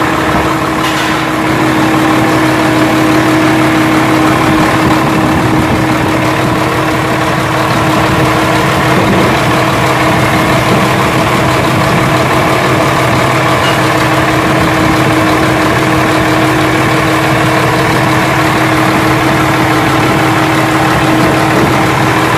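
Isuzu 6HF1 inline-six diesel truck engine idling steadily, freshly run up after an oil and filter change.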